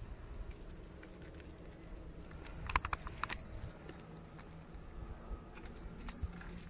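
Footsteps and rustling of a person scrambling up a dry scrub-covered slope: scattered crackles of leaves and twigs, with a quick cluster of sharp clicks about three seconds in, over a low rumble of handling and wind.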